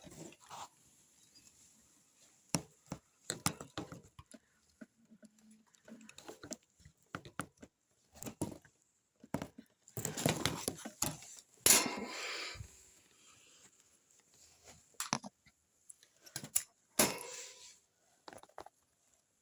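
Small caged pets moving about: irregular rustling, scratching and clicking in their bedding and cages, with a sharp knock about twelve seconds in.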